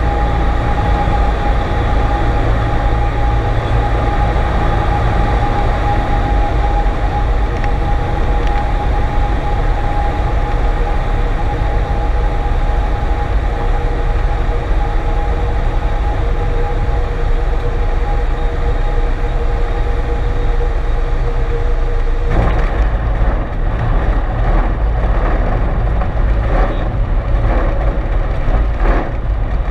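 Cessna 152's Lycoming O-235 engine and propeller droning steadily in the cabin on final approach, with a steady whine over the low drone. About 22 seconds in the whine stops and a run of irregular bumps and rattles begins: the wheels touching down and rolling along the runway.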